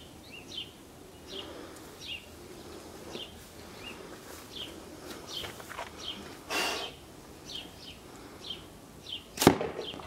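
A small songbird chirping over and over, about two short chirps a second. About two-thirds through there is a brief rushing noise, and near the end one sharp crack, the loudest sound here.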